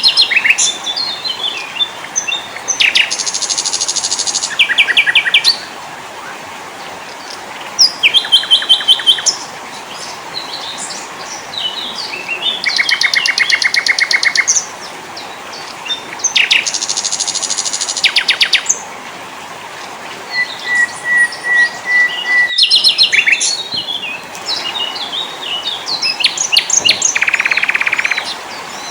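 Several small songbirds singing and calling together: quick rattling trills, sharp chirps and a run of short whistled notes on one pitch, over a steady background hiss.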